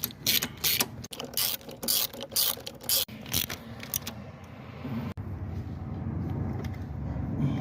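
Hand work on car engine parts: a run of irregular sharp clicks and scrapes, roughly three a second, for the first three and a half seconds. After that there is only a quieter steady low background noise.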